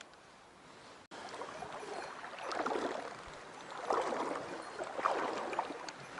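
Stream water rushing and splashing, with three swells of louder sloshing spaced a little over a second apart. The water sound gets suddenly louder about a second in.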